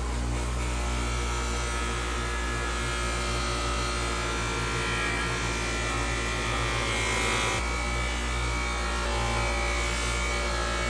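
Small electric motor, a handheld power tool, running steadily with an even hum; its low tone shifts briefly about seven and a half seconds in.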